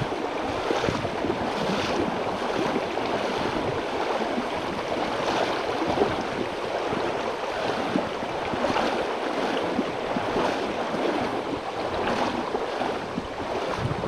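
Shallow river water rushing and rippling over a stony riffle, heard close to the surface: a steady rushing with small splashes.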